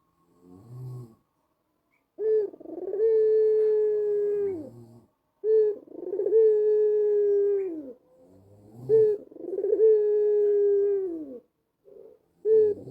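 White ringneck dove (Barbary dove) cooing. A faint short low note about half a second in, then three long coos, each a short opening note followed by a long held note that drops at its end. A fourth coo begins near the end.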